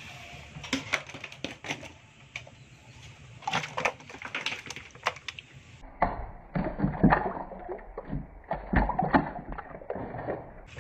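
Live snakehead fish squirming and flopping in a plastic tub: wet slaps, small splashes and knocks against the tub's sides. The knocking grows denser and louder, with low thuds, in the second half.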